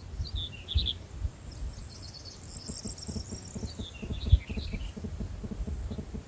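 Small birds chirping and calling in short phrases, some higher and some lower, over a low rumble with a few dull thumps.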